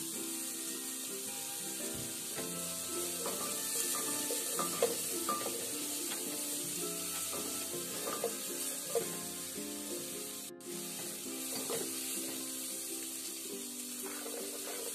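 Diced onion sizzling in melted butter in a pot, with a wooden spatula scraping and stirring now and then. Soft background music plays underneath.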